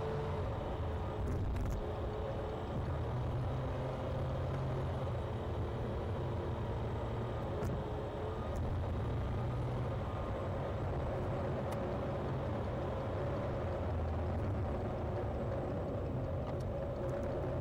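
Car running along a road, heard from inside the cabin: a steady low rumble of engine and tyre noise, with a faint tone fading out just after the start.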